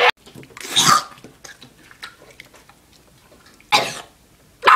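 A boy coughing twice in short bursts, about a second in and again near the end, with a few faint clicks between.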